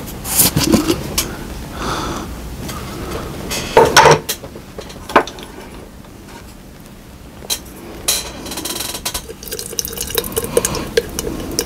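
A plastic jar of thick green slip shaken by hand, its contents sloshing and clattering, with two loud knocks about four seconds in. Near the end the slip is stirred with a stick, a run of small clicks and scrapes against the jar.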